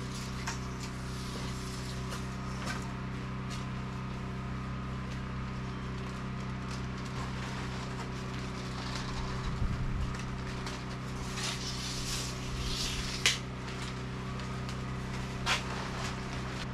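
A steady engine hum runs throughout, with scattered knocks and clatters of lumber and tools from wall-framing work; the sharpest knock comes about two-thirds of the way through.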